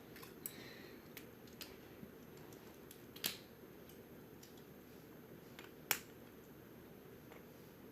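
Scattered light clicks and taps of small plastic toy pieces being handled and fitted together, two of them sharper about three and six seconds in, over a faint steady room hum.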